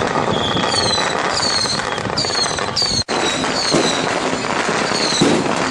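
Strings of firecrackers crackling densely and continuously, with a short high falling whistle repeating over them and a brief gap about halfway.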